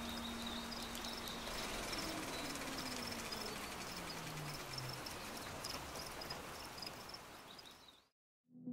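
Faint steady hiss of ambience with light, high insect-like chirps, under the fading last low notes of a song. It cuts off to silence about eight seconds in, and electronic music starts right at the end.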